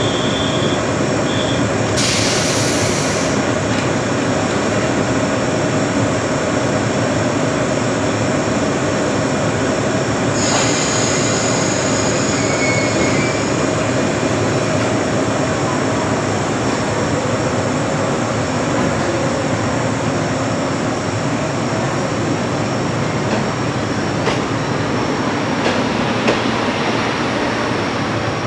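JR West electric multiple unit standing at the platform with its onboard machinery humming steadily, broken by two short hisses about two and ten seconds in. Near the end the train starts to move off, with the first wheel clicks.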